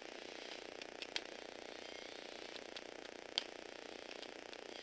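Small electric motor and plastic Lego Technic gear train whirring steadily as a motorised Lego Technic motorbike drives across a wooden floor, with two sharp clicks, about a second in and again past the middle.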